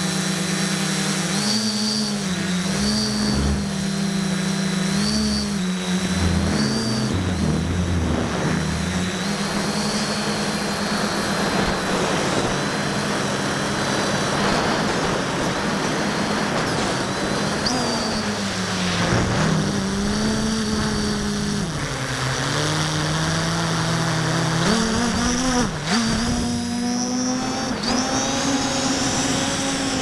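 A 650-class multirotor drone's electric motors and propellers buzzing loudly, heard from the drone's own onboard camera, with a high whine above the hum. Their pitch rises and falls as the throttle changes, dropping around the middle and climbing again near the end, over a steady rush of air noise.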